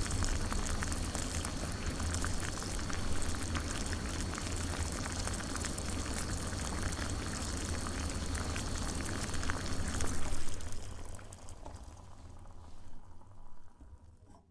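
Water boiling in a coffee pot: a dense, steady bubbling and crackling over a low rumble, dying away over the last few seconds.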